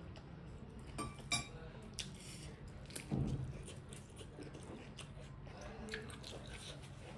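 Close-up chewing and wet mouth sounds of a person eating, with a few sharp clicks along the way over a faint steady low hum.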